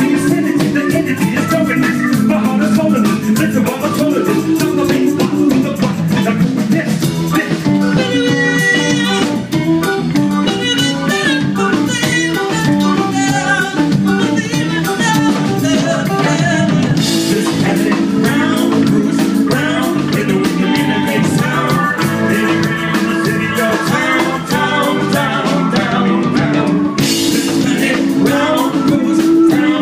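A live band playing: electric guitars and a drum kit, with a woman singing lead.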